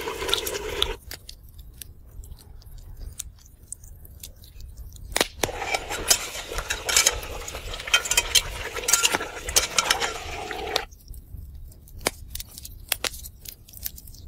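Metal slotted ladle clinking and scraping against a metal cooking pot as potato chunks are stirred into a stew, in scattered sharp clinks with a busier stretch in the middle.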